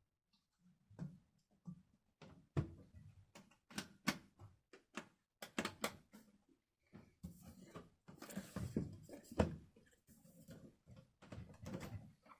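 Handling noise from a desktop PC case: irregular knocks and clicks, with a stretch of rustling about eight seconds in.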